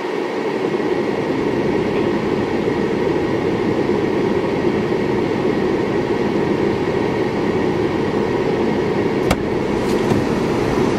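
Car air conditioning blowing steadily inside the cabin, turned up high. A single sharp click about nine seconds in, as a car door opens.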